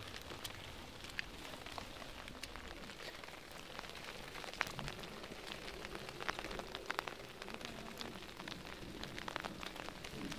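Steady rain falling, with many sharp ticks of drops landing close to the microphone.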